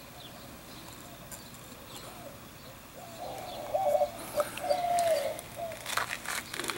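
A dove cooing: a few smooth, low notes about halfway through, over faint background hiss, with a few light clicks near the end.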